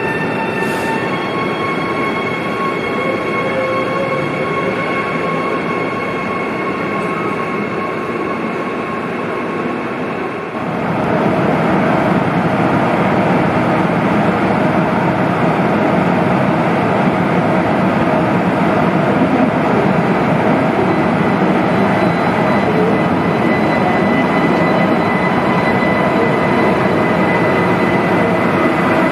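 Electric trains in an underground station: first a steady running hum with high whining tones, then, after an abrupt change about a third of the way in, a louder steady rumble with a whine from an ICE high-speed train's power car rolling slowly along the platform.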